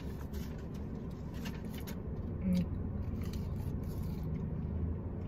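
A person chewing french fries, with scattered soft clicks and rustles of paper being handled, over a steady low hum in a car's cabin.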